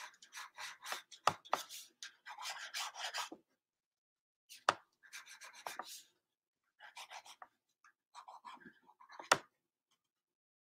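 Graphite pencil scratching across sketchbook paper in runs of quick short strokes, with a few sharp ticks among them and brief pauses between the runs; it falls silent near the end.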